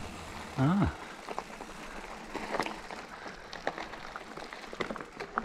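Mountain bike tyres rolling over a loose gravel track, with scattered crunching clicks from the stones. A short voice-like sound that bends up and down comes about half a second in and is the loudest thing.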